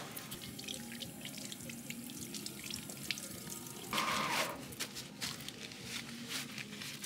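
Tap running a thin stream into a sink while hands are rubbed and rinsed under it; about four seconds in, paper towels rustle as the hands are dried.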